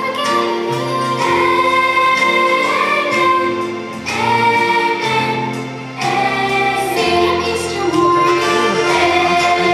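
A Christian song sung by a choir over instrumental backing, with held notes and a steady bass line.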